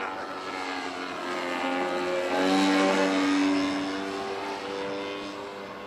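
A radio-controlled model aircraft's engine running as the model flies past, growing louder to a peak about halfway through and then fading away.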